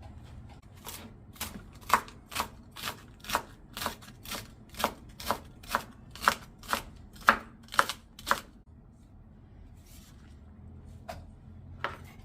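Kitchen knife chopping on a cutting board in even strokes, about two a second, then stopping, with two more single cuts near the end.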